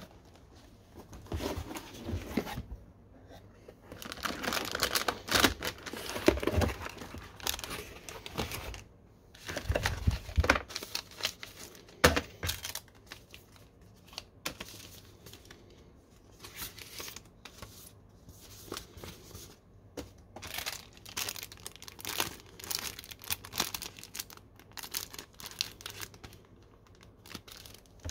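A motherboard being unboxed by hand: the cardboard box handled and opened, paper guides rustling and plastic accessory bags crinkling, in irregular rustles, scrapes and light knocks, busiest in the first dozen seconds.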